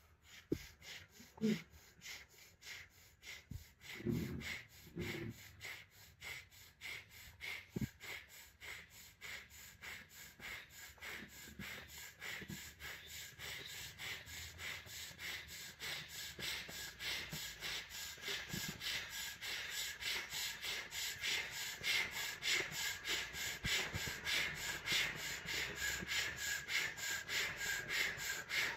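A man breathing rapidly in and out through the mouth with rounded, O-shaped lips, each breath a short puff of air in a quick, even rhythm. This is a diaphragmatic pranayama exercise, the belly pumping with every breath. The breaths grow louder as it goes on.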